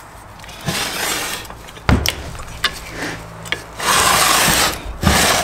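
A flat steel bar being slid and scraped over a differential housing while it is test-fitted, with a sharp knock about two seconds in and a longer, louder scrape near the end.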